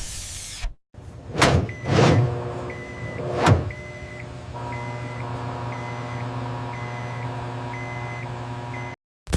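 Microwave oven running: a steady electrical hum with a faint short tone repeating a little more than once a second. It follows a few sharp knocks in the first few seconds, grows fuller about halfway through, and cuts off abruptly near the end.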